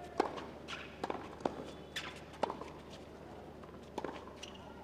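Tennis rally: sharp pops of rackets striking the ball and the ball bouncing on a hard court, coming about every half second, with a lull of over a second before another hit near the end.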